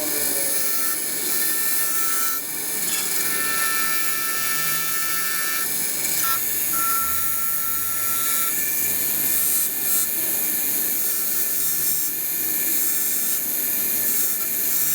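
Small high-speed electric power tool running continuously, with a thin steady whine that drops out and comes back several times over a constant grinding noise.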